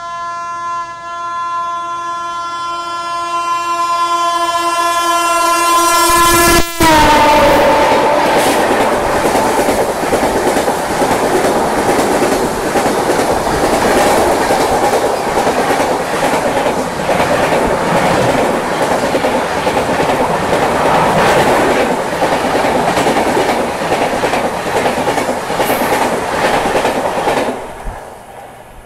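Express train, the Sampoorna Kranti Express, approaching with its locomotive horn held in one long blast; the horn's pitch drops as the locomotive passes alongside. Its coaches then run past at high speed for about twenty seconds, wheels clattering over the rail joints, and the sound falls away near the end.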